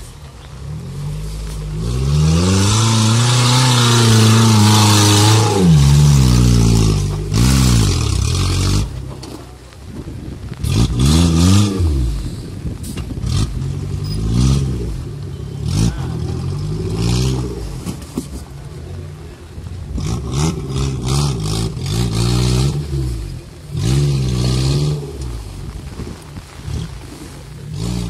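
Off-road 4x4 competition vehicle's engine revving hard in repeated bursts, pitch rising and falling, as it works up a steep muddy slope; the longest and loudest burst comes a couple of seconds in, with short knocks scattered between the revs.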